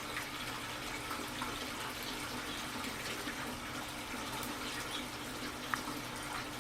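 Small garden fountain splashing and trickling steadily, with a low steady hum underneath.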